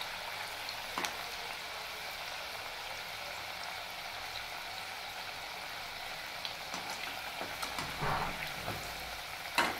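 Sweet pumpkin and wheat-flour fritters deep-frying in a kadhai of hot oil: a steady sizzling hiss. Short clinks of a wire mesh skimmer against the pan come about a second in and several times near the end, the loudest just before the end.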